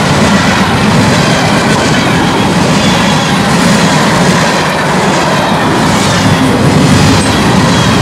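Union Pacific manifest freight train rolling past, a loud steady rumble and rattle of cars and wheels on the rails, with faint high wheel tones over it.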